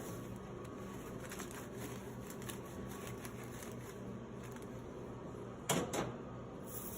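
Faint light clicks and rattles of hands working a vending machine's cash box and bills, over a steady low hum, with one sharp knock near the end.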